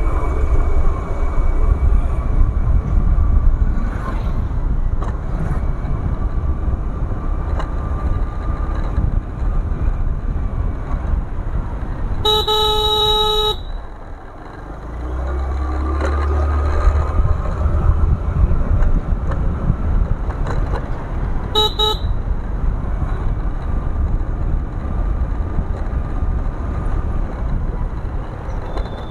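Motorcycle on the move, its engine and the wind rush running steadily. A horn sounds for about a second near the middle. Just after, the ride goes briefly quieter, then picks up again with a deeper rumble. A short horn beep comes about three-quarters of the way through.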